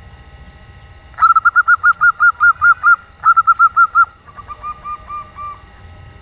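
Female zebra dove (perkutut) giving a fast run of loud, evenly spaced cooing notes, about five a second, with a brief break in the middle. It is followed by a softer, slightly lower string of notes. This is the 'nyelir' call used to draw male zebra doves into calling.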